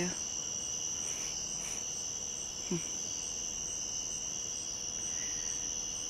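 Steady chorus of night insects in late summer: a continuous high-pitched trill that holds even throughout.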